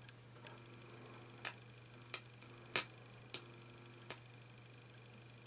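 Signal tracer giving only a low steady hum, with about five sharp clicks a little over half a second apart as its probe touches the volume-control terminals. No programme audio comes through: the signal is missing at the volume pot of the dead Hacker Sovereign RP25A radio.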